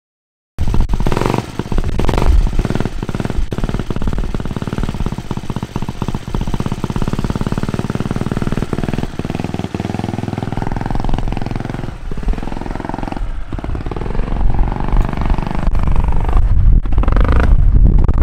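Quarter-scale RC car's engine running hard as the car drives off, a rapid, buzzy exhaust note whose pitch climbs and falls repeatedly with the throttle in the second half and is loudest near the end.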